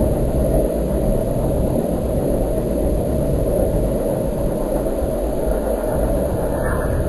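Steady low rumble of wind noise on an outdoor microphone, with a brief faint higher sound near the end.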